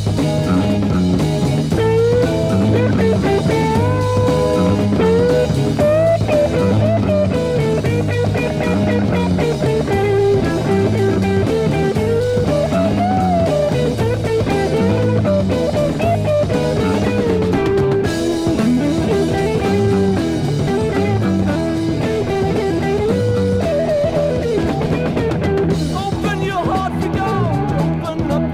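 Instrumental break in a heavy psych rock song: a lead guitar plays a melodic line with bent notes over bass and drum kit.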